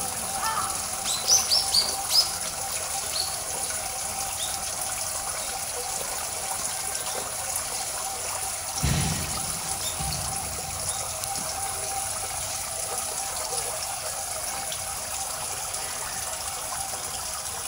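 Steady trickle of water running through a shallow pond channel. About a second in comes a quick run of four or so short, high bird chirps, and near the middle a single dull low thump.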